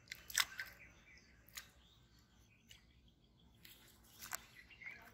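A few faint, sharp clicks and ticks, a quick cluster in the first second and a few more scattered near the end.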